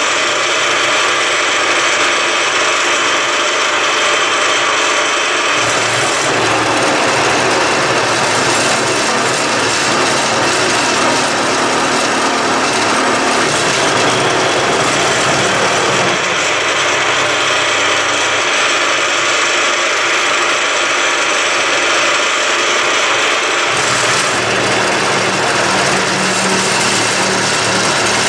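Milling machine running at about 540 rpm with an end mill cutting 1 mm deep slots into the end of a mild steel bar, with chatter. The cutting noise is steady and loud, and its tone shifts a few times as the passes change.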